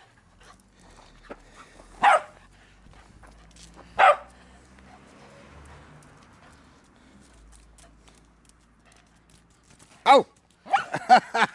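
Small dog barking: single sharp barks about two and four seconds in, then after a pause another bark and a quick run of barks near the end.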